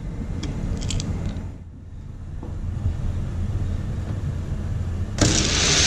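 Hot Wheels die-cast cars on an orange plastic track: a low rumble of handling with a few light clicks, then about five seconds in the start gate drops and the cars run down the track with a loud, sudden rushing rattle.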